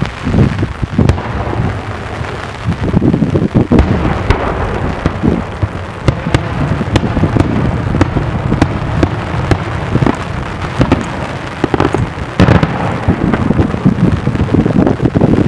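Daytime aerial fireworks: a rapid string of shell bursts, many sharp bangs several a second over continuous low booming and echo.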